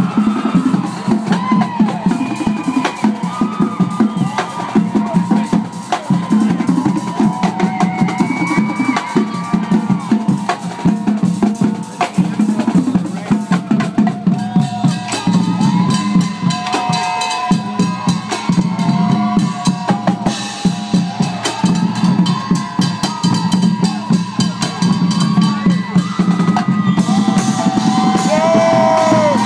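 Loud drum-driven music: rapid bass and snare drum hits under a gliding melody line.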